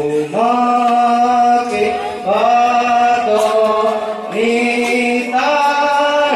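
A man chanting into a microphone over a loudspeaker in long, held notes, each phrase sliding up in pitch at its start, about four phrases in all.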